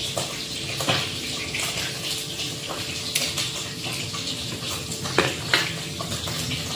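Steady hiss of mackerel frying in oil in a wok. A few light clicks and knocks from shallots, garlic and a small knife being handled beside a metal plate, the sharpest about five seconds in.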